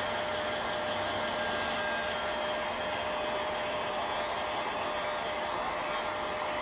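Heat gun blowing steadily, a constant rush of air with a thin steady whine, as it heat-shrinks window tint film on a car's rear glass.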